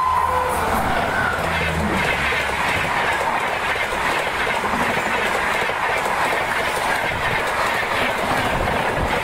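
Train passing close by at speed: a steady, loud rush of wheels clattering over the rails, with a low hum and a short tone fading out in the first two seconds.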